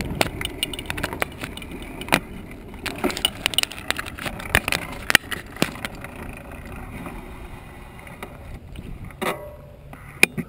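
Bicycle rolling along a paved path: a low rumble with frequent sharp rattles and clicks from the bike jolting over bumps. It quietens near the end as the bike slows to a stop.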